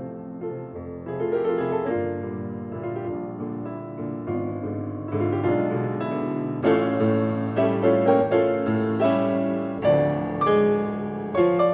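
Steinway grand piano played four hands, a classical piece read from sheet music, with many notes struck together in chords and runs. The playing grows fuller and louder a little past halfway.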